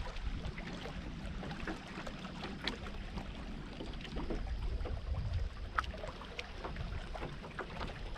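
Low rumble of wind and water around a small fishing boat, with scattered light clicks and taps.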